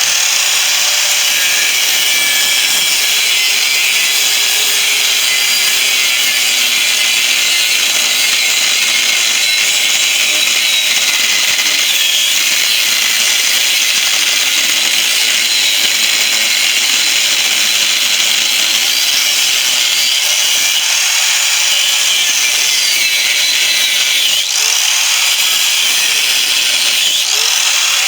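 Corded angle grinder with a cutting disc running under load, cutting into the steel shell of a refrigerator compressor: a loud, steady, high-pitched grinding whose pitch wavers slightly as the disc bites.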